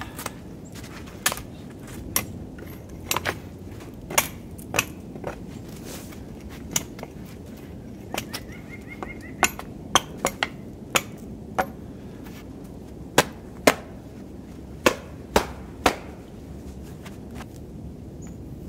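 Small axe chopping a stick of wood: a series of sharp, irregular chops that stop a few seconds before the end.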